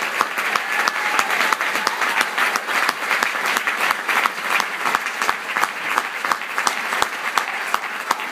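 Live audience applauding steadily to welcome a guest singer onto the stage.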